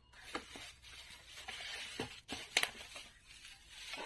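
Bubble wrap crinkling and rustling as it is handled and a wrapped microphone is lifted out of a cardboard box, with a few light knocks; the sharpest comes about two and a half seconds in.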